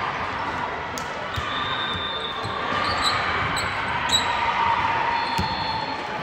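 Indoor court play: shoes squeaking in short chirps on the floor and a few ball thuds over a background murmur of voices.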